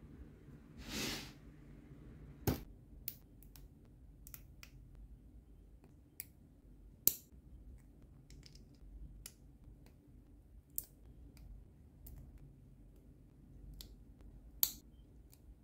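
Plastic parts of an HG 1/144 Shin Burning Gundam model kit clicking as they are pressed and snapped together by hand: a dozen or so sharp clicks at uneven intervals, the loudest about two and a half, seven and fourteen and a half seconds in. A brief soft rustle about a second in.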